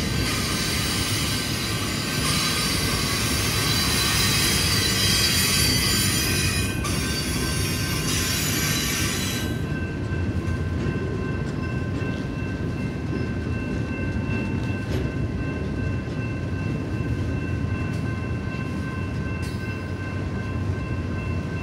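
Loaded double-stack container well cars rolling past, their steel wheels squealing with a high, many-toned screech over a steady rumble. The screech cuts off abruptly about halfway through, leaving the rumble and a fainter, thinner squeal.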